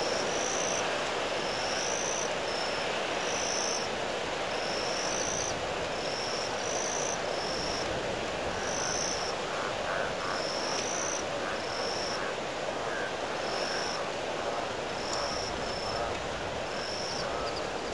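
Windstorm wind rushing steadily over the microphone. A small creature's short, high-pitched chirp repeats about once a second through the noise.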